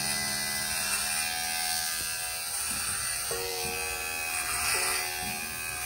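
Kemei KM-2002 cordless metal hair clipper buzzing steadily as it cuts through hair at the side of the head, running smoothly.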